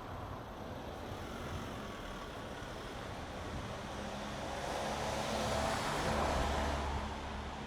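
Street traffic: a motor vehicle passes by, swelling from about halfway through to its loudest near the end and then fading, over a steady low rumble of city traffic.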